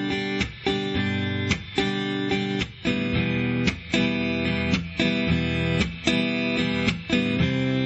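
Steel-string acoustic guitar strummed in a down, down-chuck, up, up, down-chuck, up pattern while changing chords in a G, E minor, C, D progression. The chucks are fret-hand mutes on the downstroke that cut the ringing chord short with a percussive scratch, about once a second.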